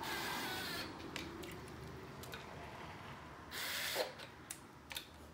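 Small cordless impact running intake manifold bolts down in two short bursts, one at the start and one about three and a half seconds in, with a few light clicks between them. The bolts are only being run down snug before they are torqued, not hammered tight.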